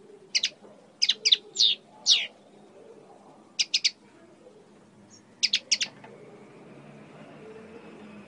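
Common linnet chirping: quick clusters of short, high, sharp notes, the first four bunched in the opening two and a half seconds, then a group of three near four seconds and another three about five and a half seconds in, with pauses between.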